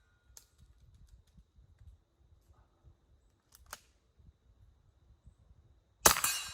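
Kel-Tec Sub-2000 9mm carbine, suppressed, firing one subsonic round about six seconds in: a sharp crack with a short ringing tail, not very loud at all. Before it there are only a few faint clicks.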